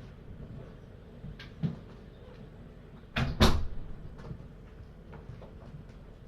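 Knocks in a room: a light knock about one and a half seconds in, then two loud bangs in quick succession a little past three seconds in.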